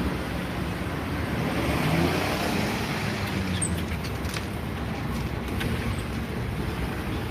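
A vehicle passing in steady traffic noise, swelling to its loudest about two seconds in and then easing off.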